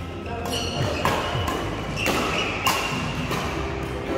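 Badminton rackets striking the shuttlecock during a doubles rally: a string of sharp hits, four of them about half a second to a second apart.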